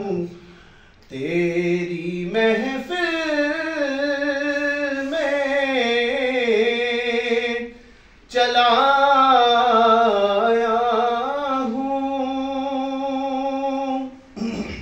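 A man singing a naat unaccompanied, in long drawn-out notes that waver in pitch: two long phrases of about six seconds each, with a short breath between them.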